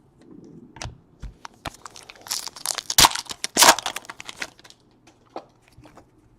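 Crinkling and tearing of a trading-card pack wrapper being torn open, a run of sharp crackles and snaps that is loudest in the middle and thins to scattered clicks near the end.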